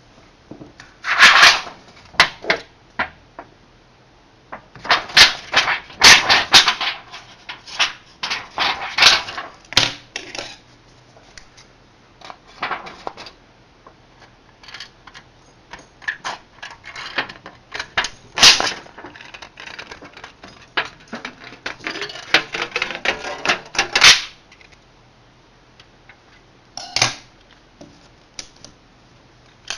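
Metal tools and small metal parts clinking, clattering and scraping as they are handled, in irregular clusters of sharp clicks with short pauses between them.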